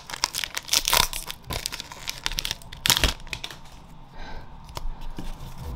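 Foil trading-card booster pack wrapper crinkling and crackling as it is opened and handled, densest for the first three seconds, then fainter rustling of cards being handled.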